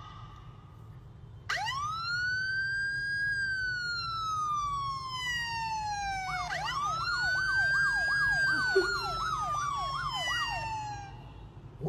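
Emergency-vehicle siren, likely playing from a phone's speaker. About a second and a half in it starts a long wail that rises and then slowly falls. Halfway through a second wail rises and breaks into a fast warbling yelp, about two or three rises a second, before it fades near the end.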